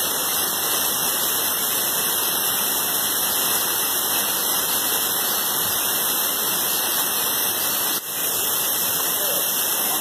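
Steady rush of a mountain stream and its cascades in a rocky gorge, with a brief break about eight seconds in.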